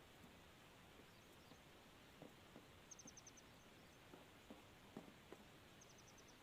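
Near silence: a faint steady hiss with scattered faint clicks, and two short runs of rapid, high-pitched chirps, about three seconds apart.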